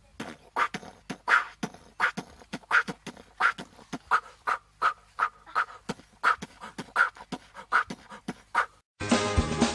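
Goat making a quick run of short, rhythmic grunting sounds, about three a second. It stops shortly before music comes in near the end.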